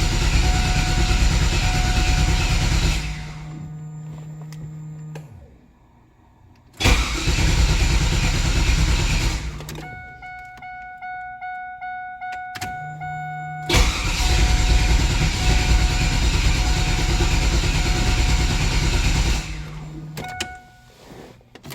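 LT1 V8 cranking on its starter without catching: three long cranks of several seconds each, cut off between tries. In the gaps a steady low hum and faint ticking remain.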